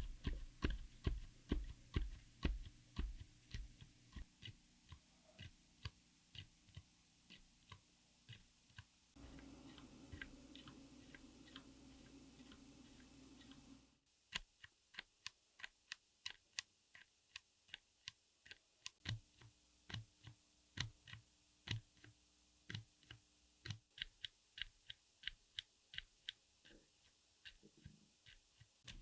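Quiet keypresses on a mechanical keyboard fitted with silent switches, pressed one at a time at about two soft clicks a second. The background changes sharply about halfway through, as at a cut between takes.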